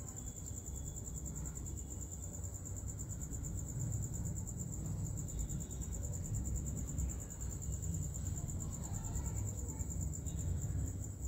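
Crickets trilling, a continuous high pulsing chirr, over a low steady rumble.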